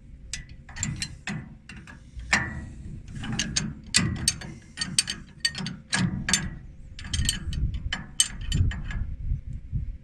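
Wrench tightening a hydraulic hose elbow fitting: irregular metallic clicks and clanks as the wrench is worked around the fitting.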